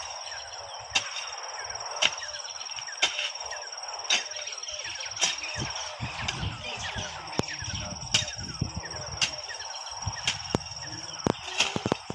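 A jembe (hand hoe) striking the ground about once a second as weeds are cleared, with a steady high insect trill behind it.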